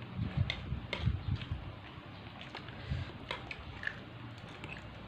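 Quiet eating sounds: a metal spoon clicking and scraping against china plates several times, with a few low thumps in the first second and a half and again about three seconds in.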